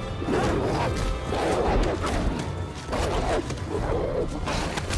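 Movie fight sound: wolves snarling and growling about once a second, with thuds of the struggle, over a music score.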